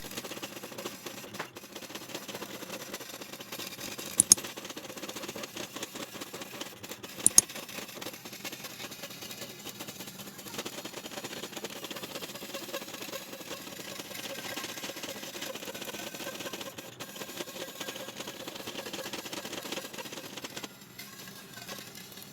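Small milling machine running, with a steady fast clatter and a faint hum. Two sharp clicks, about four and seven seconds in.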